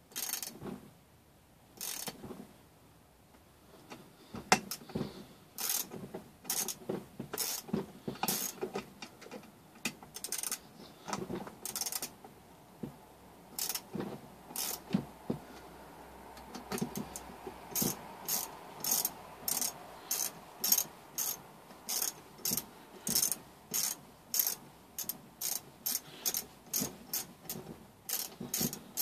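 Hand ratchet clicking while a fastener is turned. The clicks come scattered at first, then settle about halfway through into a steady run of roughly two a second.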